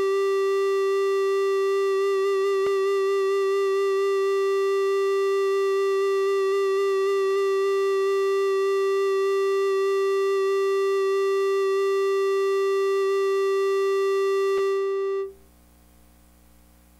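A single steady electronic keyboard note is held for about fifteen seconds as the song's final drone, then cut off abruptly. A faint low hum remains after it.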